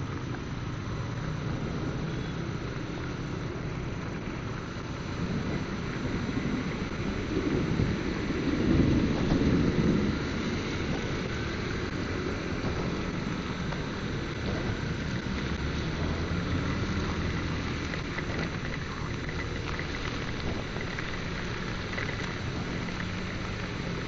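Rain hissing and wet-road noise from a motorcycle ride in a downpour, with the engine running steadily underneath. A louder low rumble swells up about eight to ten seconds in.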